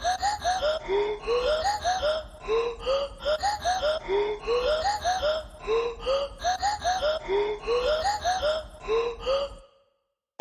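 Background music: a short, bright melodic phrase repeating over and over, stopping abruptly just before the end.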